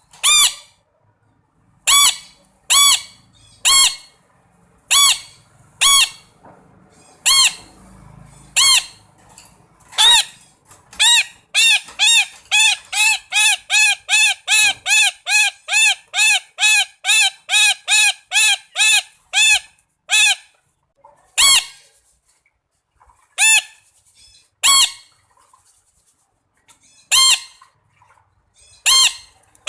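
Red-breasted parakeet calling loudly: single calls about a second apart, then a fast run of about three calls a second for some ten seconds, then a few scattered calls.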